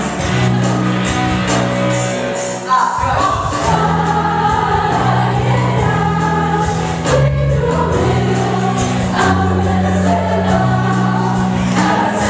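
Second chorus of a song: a choir sings over band accompaniment with a steady bass line, and the music gets a sharp accent a little under three seconds in.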